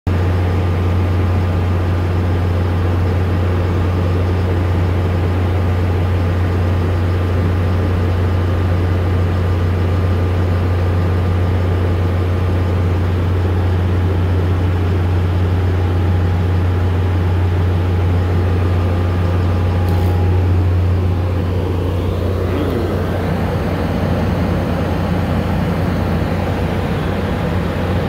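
Engine of construction equipment running steadily, a loud low drone, growing a little quieter and rougher toward the end.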